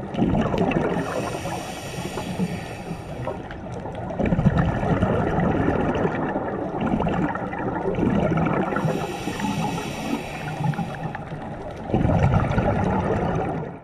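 Scuba diver breathing through a regulator underwater: two hissing inhalations, about a second in and again near nine seconds, alternating with longer stretches of gurgling exhaled bubbles.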